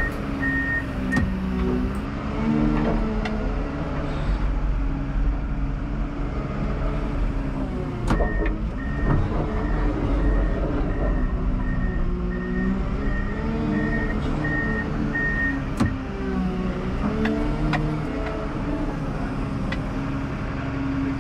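Komatsu WA320 wheel loader's diesel engine running from the cab, its pitch rising and falling with the throttle as the machine maneuvers. Its reversing alarm beeps briefly at the start and again for several seconds in the middle, at about two beeps a second. A few sharp knocks stand out.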